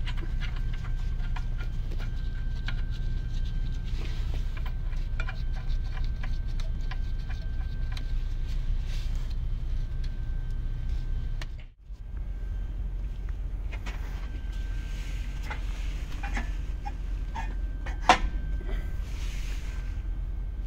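Scattered metallic clicks and clinks of hand tools and bolts as an Eaton heavy-duty clutch pressure plate is bolted to the flywheel, over a steady low hum. A sharp knock about 18 seconds in is the loudest sound, and the sound cuts out briefly a little past halfway.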